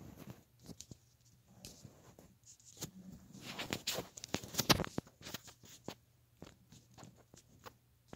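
Handling noise from the camera being moved and set up: scattered clicks, taps and rustling, busiest about halfway through.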